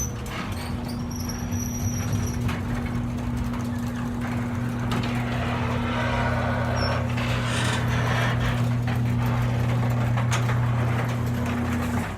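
Garage door opener motor running through a door cycle: a steady hum with the door rattling along, strongest in the middle, cutting off suddenly near the end as the door reaches its stop.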